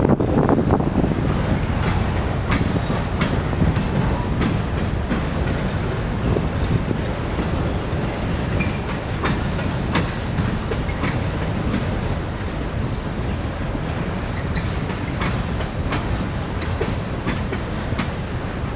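Freight train of covered hoppers and tank cars rolling past at steady speed: a steady rumble of wheels on rail with irregular clicks as the wheels cross rail joints, and a couple of brief high wheel squeals in the second half.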